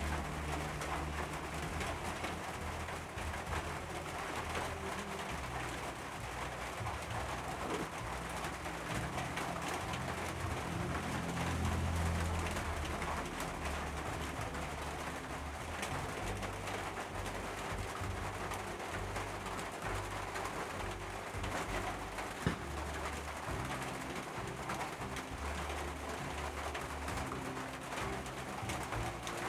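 Birds cooing low and repeatedly over a steady background hiss, with one sharp click about two-thirds of the way through.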